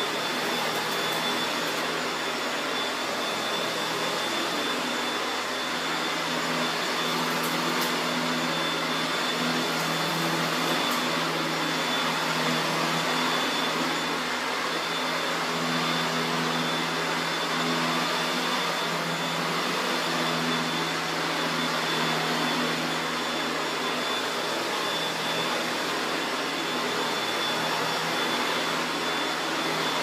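1987 Hoover Turbomaster Electronic U5080 upright vacuum cleaner running steadily, pushed back and forth over carpet, with a steady high whine over its motor noise.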